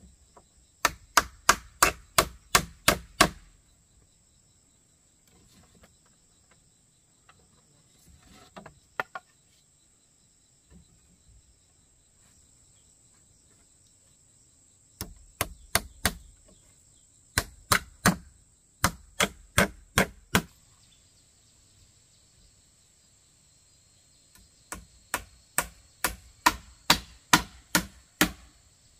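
Hammer striking nails into the bamboo and wood frame of a chicken coop, in quick runs of sharp blows about three a second with pauses between runs. Insects hum steadily in the background.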